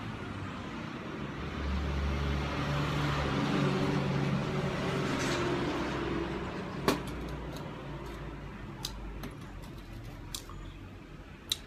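A motor vehicle passing by, its engine and road noise swelling over a few seconds and then fading away. A few sharp clicks follow, the loudest about seven seconds in.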